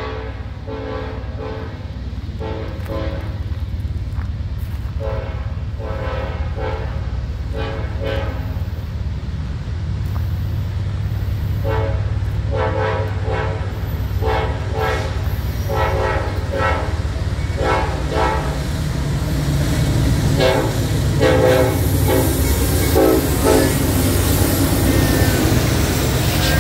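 The horn of BNSF AC4400CW locomotive 5654, leading a loaded coal train, sounded as a long run of short toots in quick groups, a greeting to onlookers. Under it the train's low diesel rumble grows louder as it approaches, and rail and wheel noise rises near the end.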